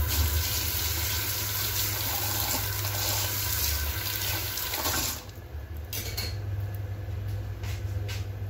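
Kitchen tap running, water splashing over a knife blade as it is rinsed in the sink; the flow stops suddenly about five seconds in. A few light knocks follow near the end.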